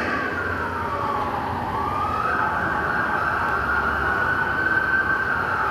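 Emergency-vehicle siren wailing in a played-back soundtrack. Its one slow tone falls over about a second and a half, then rises and holds high.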